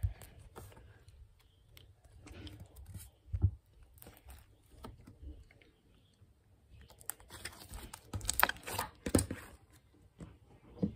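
Fluffy slime being stretched and squished by hand close to the microphone, giving scattered crackles and pops, with a cluster of sharper cracks about seven to nine seconds in and soft thumps of handling.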